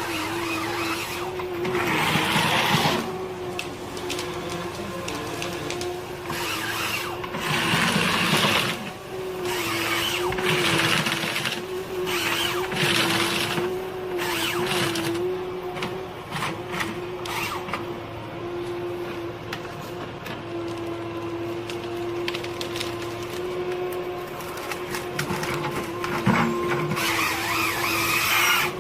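Heavy forestry machine running: a steady, slightly wavering engine or hydraulic whine, with several louder surges of noise a few seconds apart as it works.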